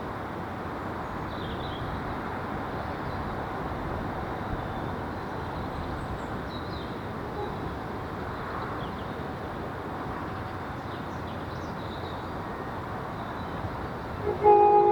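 Steady rushing noise of a passing train, then a train's horn sounding in short, loud, pitched blasts near the end.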